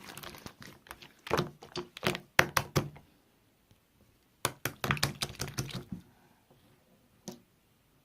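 Slime being squished and pressed by hand, giving clusters of sharp clicking pops, with a pause about three seconds in and one last pop near the end.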